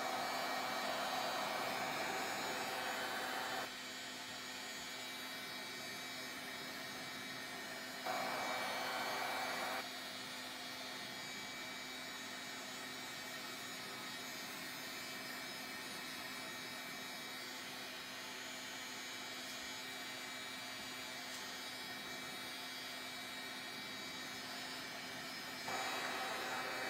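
Handheld craft heat tool blowing hot air to dry wet water-based stain on a card, a steady whooshing hiss. It is loudest in three spells: at the start for about four seconds, briefly about eight seconds in, and again near the end; in between a quieter steady hiss and hum goes on.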